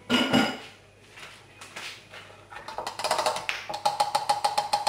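Small electric food chopper being taken apart after blending: a clatter as the parts come off just after the start, then from about halfway a fast run of small, ringing taps as the blade and bowl are handled.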